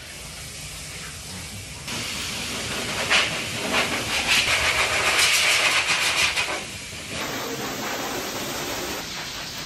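Dog-wash station blow dryer blowing a steady rush of air through its hose as it dries a wet dog's coat, starting about two seconds in, loudest in the middle, and quieter after about seven seconds.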